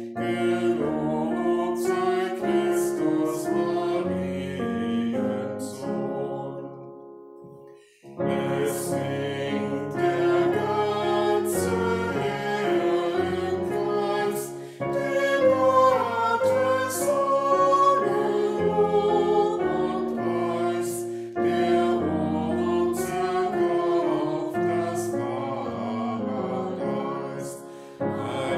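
A choir singing a German Easter hymn with Halleluja refrains, in long held chords; one verse dies away about six to eight seconds in and the next verse begins.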